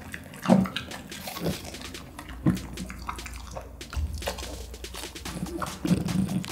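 French bulldog chewing raw vegetable close to the microphone: wet, open-mouthed chewing with a few sharp crunches at irregular intervals.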